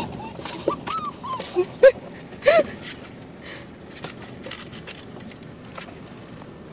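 Two-month-old mixed-breed puppies whimpering and yipping in a run of short cries that rise and fall in pitch during the first three seconds. Scattered knocks and scratches from the puppies moving in a cardboard box continue after the cries stop.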